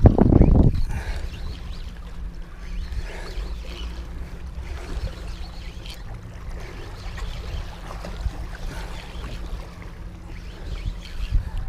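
Steady low rumble of a fishing boat on the water, with faint splashes and knocks of water against the hull; a louder thump and rustle comes in the first second.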